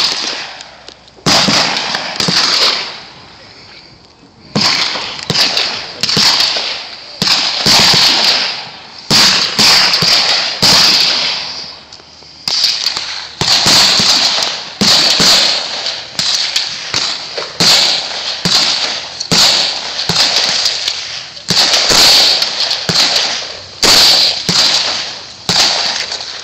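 Gunfire: a long string of single shots, roughly one to two a second, each with a short echoing tail, with brief pauses about three seconds in and again near twelve seconds.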